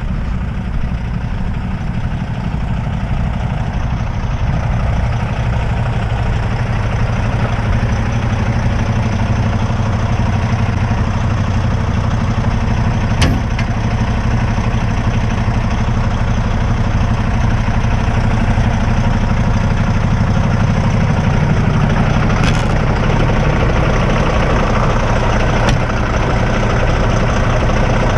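Heavy diesel truck engine running steadily, a little louder after the first few seconds, with a few short sharp clicks in the middle and near the end.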